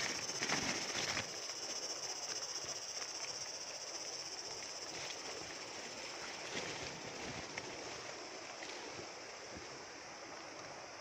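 Coffee shrub leaves and twigs rustling and brushing against the phone for about the first second, then a steady high-pitched outdoor hiss with a few faint rustles.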